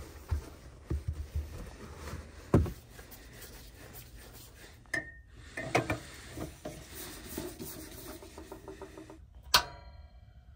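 Handling knocks and rubbing, then a propane cylinder being screwed onto a Mr. Heater Buddy portable propane heater with a run of quick clicking ticks, and one sharp click near the end as the heater is lit.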